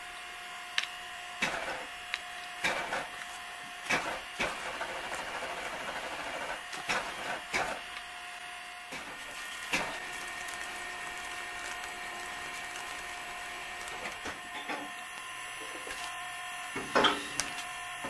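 Electric truck-tire regroover running with a steady hum while its heated blade cuts new grooves into the worn rubber tread. Sharp clicks are scattered through it, most of them in the first ten seconds and another near the end.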